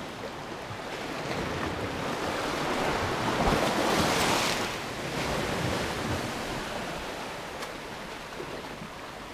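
Sea surf washing in over the rocks of a rocky shoreline, with a steady wash throughout. One wave swells to its loudest about halfway through, then recedes.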